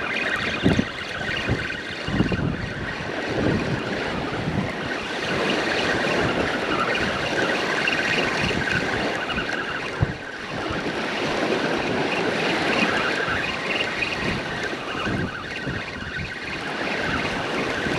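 Gusty wind buffeting the microphone in irregular low thumps over the steady wash of surf.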